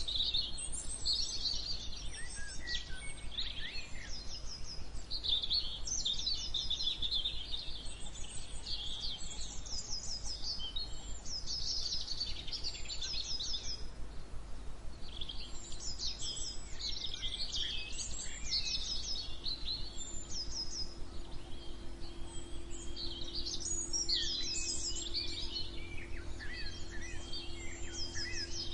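Several birds singing and chirping at once: overlapping runs of quick, high, repeated notes and trills, over a steady low background rumble.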